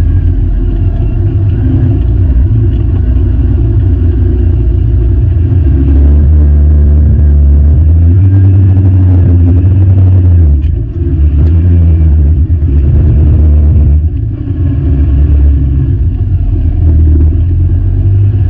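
Utility vehicle's engine running under way with a steady low rumble, easing off briefly twice, around 11 and 14 seconds in.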